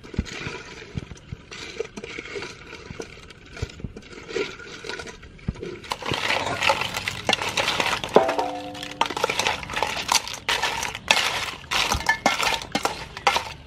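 Raw blue crab pieces being tossed in sauce with a wooden spoon in a stainless steel bowl: hard shells clicking and clinking against the metal, with wet sloshing. The stirring gets busier and louder about six seconds in.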